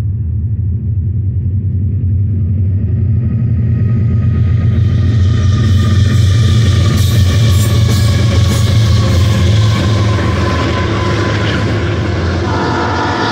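BNSF freight train led by four GE ES44C4 diesel-electric locomotives passing close by: a deep, steady engine rumble under rising wheel and rail noise that swells to its loudest about halfway through, then the rolling of double-stack container cars. Near the end, a steady high ringing tone of several notes comes in.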